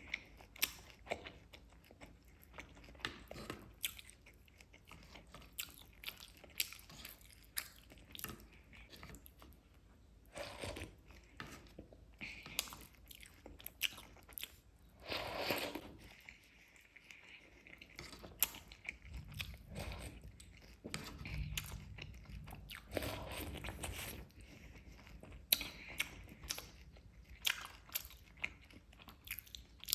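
Close-miked eating: chewing and biting chocolate cake with crunchy Chocos cereal, with many sharp crunches scattered throughout.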